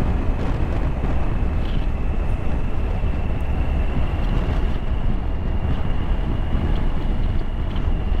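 Motorcycle riding at a steady speed on the open road, heard from the bike itself: steady engine and road rumble with heavy wind rush on the microphone, and a thin high whine held steady over it.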